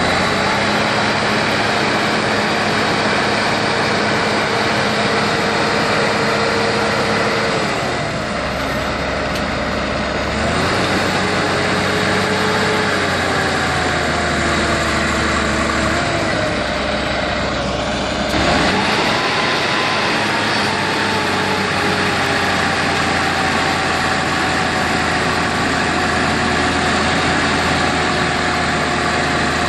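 Heavy-machine diesel engine running. Its speed drops about a quarter of the way in and picks back up, sags slowly, then rises sharply a little past halfway before easing off again.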